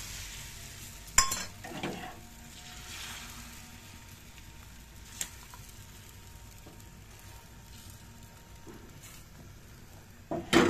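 Omelet batter sizzling in hot oil on a tawa, the sizzle fading over the first few seconds as the egg sets. There is a sharp metal clink about a second in and a clatter of utensils near the end.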